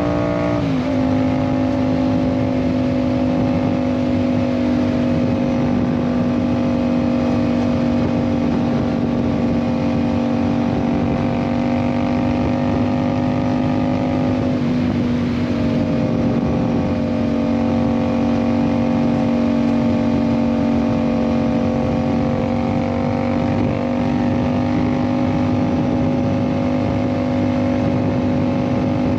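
Yamaha MT-07 parallel-twin engine running through an aftermarket Ixil exhaust while the bike cruises at a steady pace. The engine note drops about half a second in and dips briefly around fifteen seconds in, with wind and road noise underneath.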